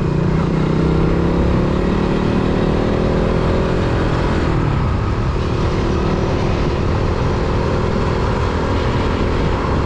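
Motorcycle engine accelerating with rising pitch, dropping sharply about five seconds in as the rider shifts up a gear, then running steadily at cruising speed. Wind rumbles on the microphone throughout.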